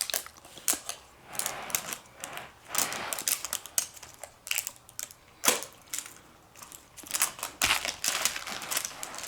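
Plastic wrapper crinkling and tearing, with sharp irregular clicks and snaps from the plastic capsule of a blind-pack squishy toy being pried open.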